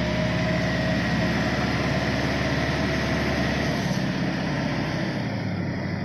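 Tractor engine running steadily while it positions a trolley heavily loaded with sand, easing off slightly about two-thirds of the way through.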